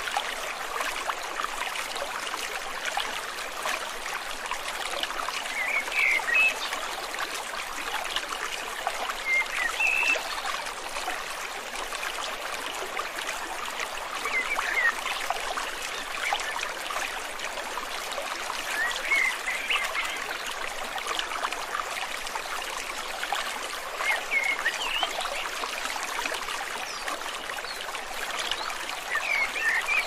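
Shallow rocky stream flowing and babbling steadily over stones. A short high call repeats about every four to five seconds above the water.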